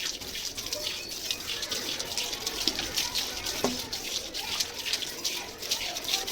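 Tap water running and splashing while a refrigerator shelf or tray is rinsed under it, with a light knock of the part a little past the middle.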